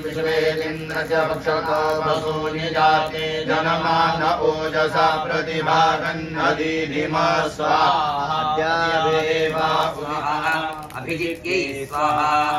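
Vedic mantras chanted in Sanskrit by male priests, a continuous recitation on held pitches.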